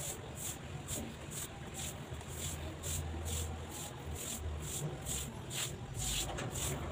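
Damp sponge rubbing back and forth over cement-grouted broken tiles, wiping cement residue off the tile faces in even swishing strokes about twice a second.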